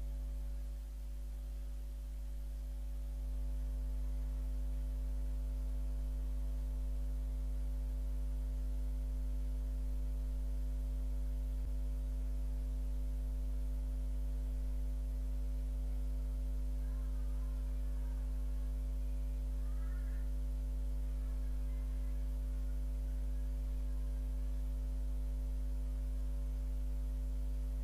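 Steady electrical mains hum, one unchanging low drone with its overtones; no sound of the hand mixing the dough stands out above it.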